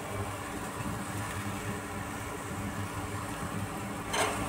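A steady low machine hum, with a brief soft rustle near the end.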